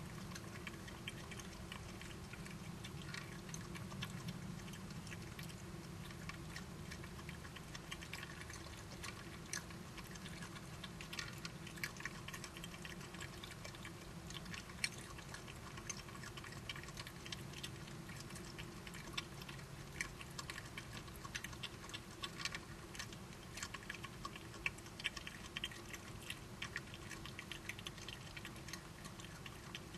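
Badgers eating, crunching their food in many irregular small crisp clicks over a faint steady hum.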